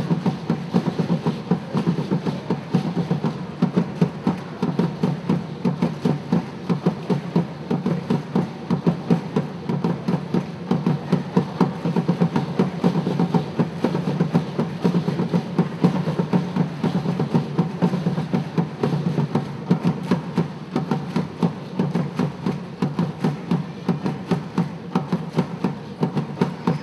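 Drum ensemble playing live Afro-Haitian dance drumming: a dense, steady rhythm of drum strokes.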